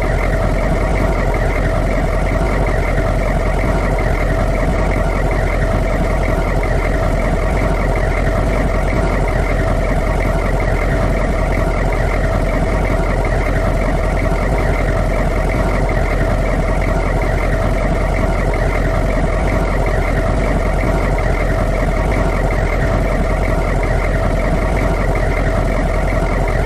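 Humvee V8 diesel engine idling steadily, a constant low rumble with no change in speed.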